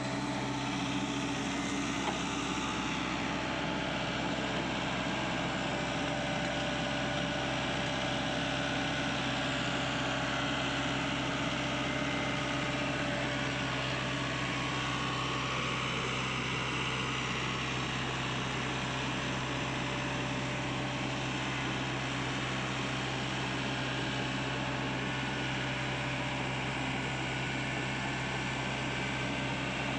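Sany SY55C mini excavator's diesel engine idling steadily, with no change in speed.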